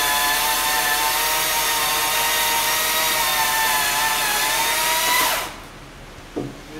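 Chainsaw running at steady high speed while cutting into a maple tree, then cutting off abruptly about five seconds in.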